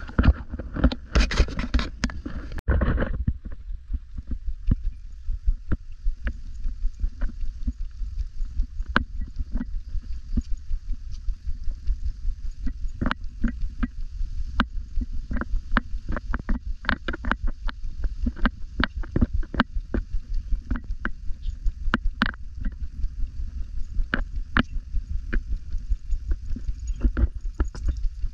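Footsteps on an asphalt road at walking pace, about two a second, heard as soft thuds over a low rumble from the camera moving with the walker. Light sharp clicks come and go, and a louder scuffing burst comes in the first few seconds.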